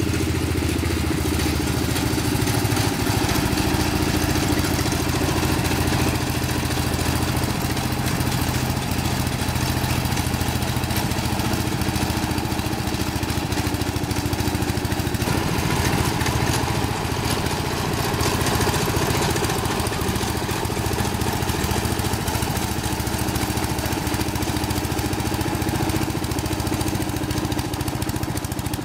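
Propane-fuelled riding lawn mower engine running steadily.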